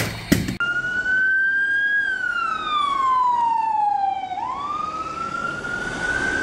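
Police car siren wailing: one slow cycle in which the pitch falls steadily for a couple of seconds and then climbs back up. It is preceded by a brief burst of noise in the first half-second.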